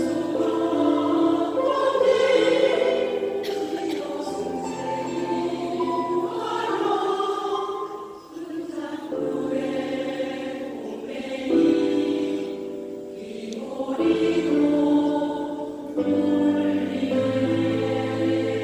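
A seniors' choir singing in harmony, holding long notes in phrases with brief breaks between them.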